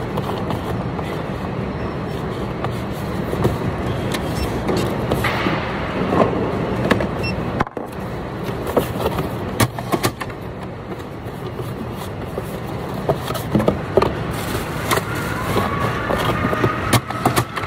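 Steady warehouse machinery hum, with cardboard boxes being folded and set down on a packing table: scattered knocks, taps and scrapes.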